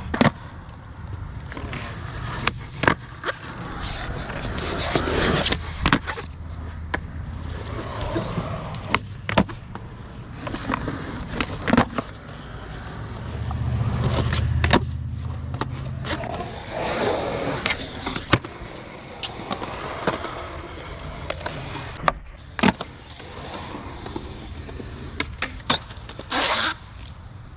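Skateboards rolling on concrete, with sharp clacks of tails popping and boards landing scattered irregularly throughout.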